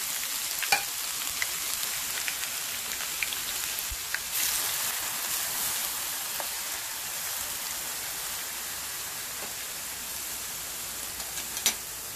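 Finely chopped ginger and garlic sizzling in hot olive oil in a metal frying pan, stirred with a spatula. The steady sizzle swells about four seconds in, with a few sharp clicks along the way.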